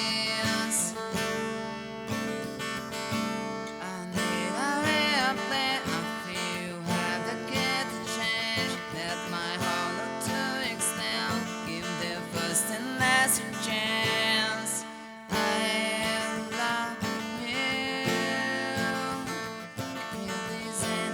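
Instrumental song intro: strummed acoustic guitar chords over a bass line, with a lead melody that bends in pitch and weaves over the chords.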